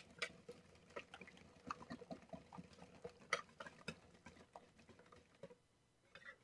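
A whisk beating thin batter in a plastic mixing bowl: faint, quick, irregular clicks and scrapes against the bowl that stop about five and a half seconds in.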